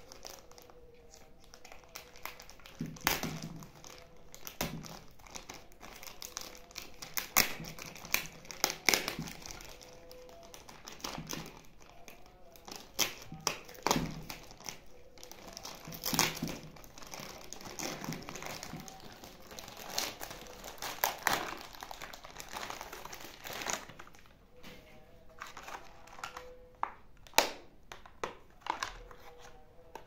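Clear plastic packaging bag crinkling and crackling in irregular bursts as hands handle it, open it and slide a metal drive caddy out.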